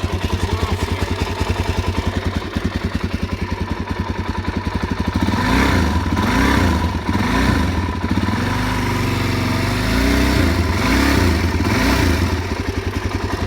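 2003 Suzuki DR-Z400's single-cylinder four-stroke engine idling evenly. About five seconds in it is revved with a few quick throttle blips, then held at higher revs for a few seconds, and it drops back to idle near the end. The owner calls it running well with a good idle.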